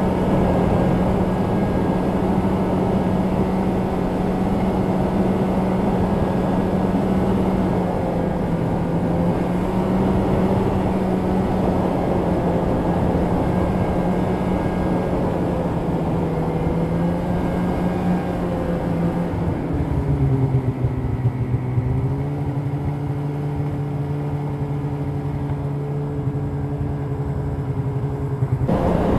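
Polaris two-stroke snowmobile engine running steadily at trail speed under a wash of track and wind noise. About two-thirds of the way through its pitch drops as the sled eases off and slows, holds lower, then jumps back up near the end.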